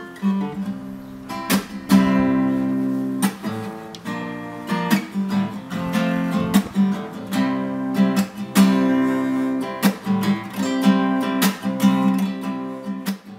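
Acoustic guitar music, with chords strummed in a steady rhythm.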